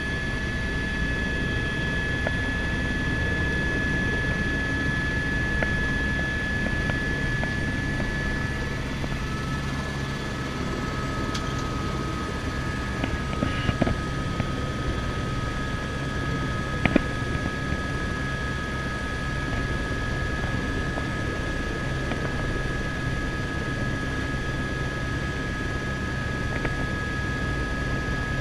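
Helicopter turbine engine and main rotor running steadily with the aircraft on the ground, heard from inside the cabin: a steady low rumble with high whine tones, a second whine tone coming in about a third of the way through. A few small clicks come about halfway through.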